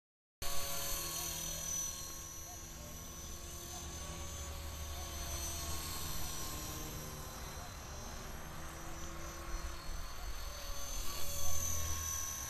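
HK-450 electric RC helicopter flying overhead: the steady high whine of its motor and gears over the hum of the spinning rotor blades. The sound cuts in abruptly just after the start and swells louder near the end.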